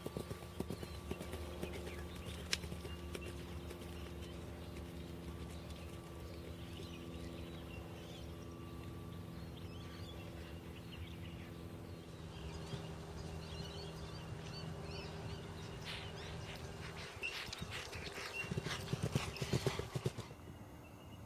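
Hoofbeats of a galloping event horse on grass turf over a steady low hum. A quick run of hoofbeats, the loudest part, comes near the end as a horse gallops in close.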